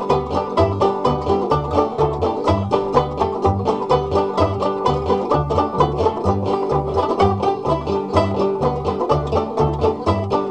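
Background bluegrass-style banjo music, with quick plucked notes over a steady bass beat about twice a second.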